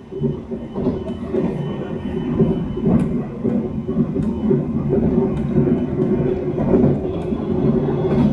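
Taiwan Railways EMU700 electric commuter train heard from inside the car, its running noise swelling over the first few seconds and then holding as a steady low rumble. A few sharp clicks of the wheels are scattered through it.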